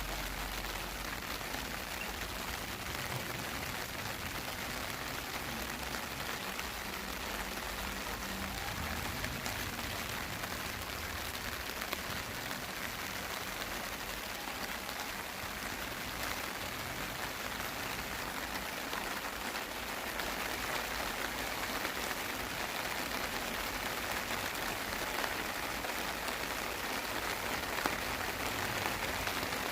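Steady rain of the summer monsoon season falling, a little louder from about twenty seconds in.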